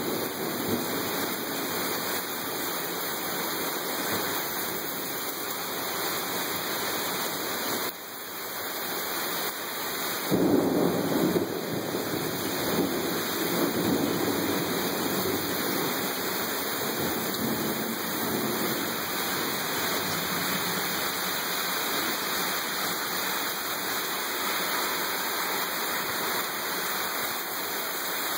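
Heavy thunderstorm downpour, a steady rush of rain, with a rumble of thunder swelling up about ten seconds in.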